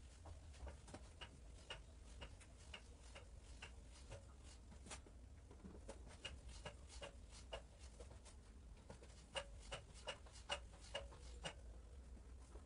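Faint, regular clicking, about two clicks a second, from a hand-cranked tube roller bender as galvanized tube is rolled through it. The clicks grow a little louder in the second half.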